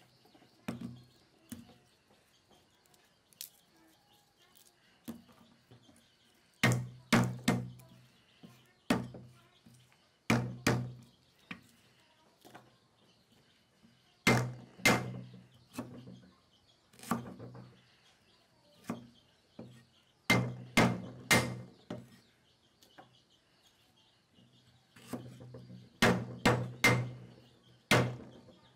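Cleaver chopping a piece of root on a thick wooden chopping board: sharp knocks with a dull thud, in quick groups of two to four strokes with pauses between. A faint steady high chirring runs underneath.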